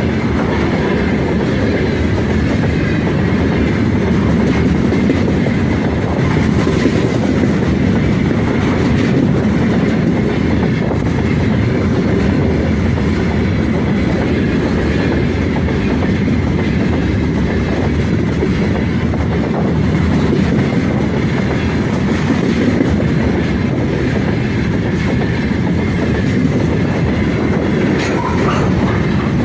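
Heavy freight train's wagons rolling past, a steady loud rumble of steel wheels on the rails.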